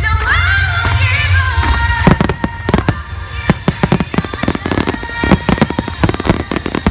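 Fireworks going off over music played for the display, with rapid crackling and banging that starts about two seconds in and continues as a dense string of sharp reports.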